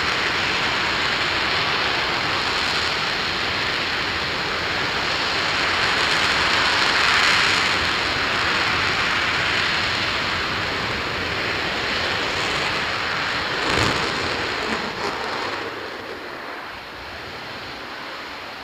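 RS-25 liquid-hydrogen/liquid-oxygen rocket engine firing at full power, a loud steady rushing noise. About 14 seconds in, a sharp crack marks the engine's shutdown at the end of the 500-second test, and the noise then dies away.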